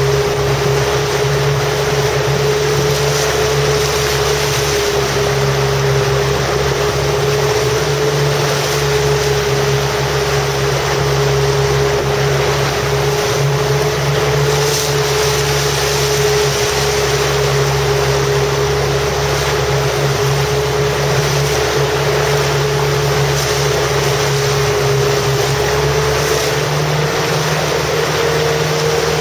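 Motorboat engine running steadily, a constant drone whose pitch edges slightly higher near the end, with wind and water noise over it.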